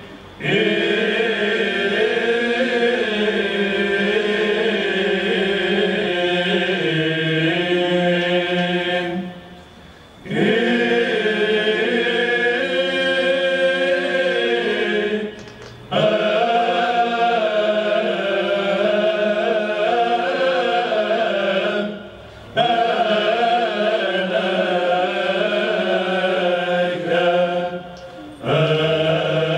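Male Byzantine choir chanting a hymn in the plagal first mode, a melody moving over a held low drone note (ison). The singing comes in long phrases of about six seconds, with a short break for breath between them, four times.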